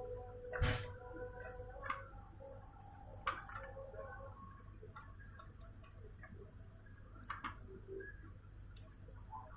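A few scattered sharp clicks and knocks, the loudest about half a second in, over a faint steady hum.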